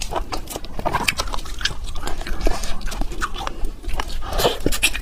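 Close-miked mouth sounds of eating: chewing and lip smacking, a dense irregular run of short clicks and smacks.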